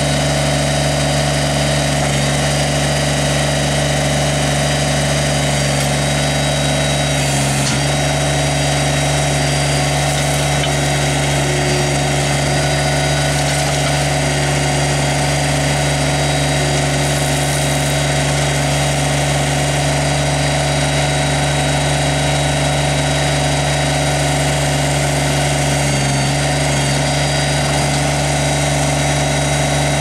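Kubota BX25D compact tractor's three-cylinder diesel engine running at a steady speed while the backhoe and its stabilizers are worked, with brief changes in the engine note about a quarter of the way in and again near the end.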